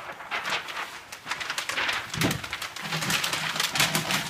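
Large sheets of paper being crumpled and crushed by hand, a dense crackling rustle, with a dull thump about two seconds in.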